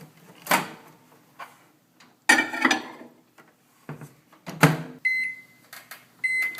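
Knocks and clatter at a microwave oven as the bowl goes in and the door shuts, then the microwave beeping: two long, even beeps at one pitch about a second apart near the end.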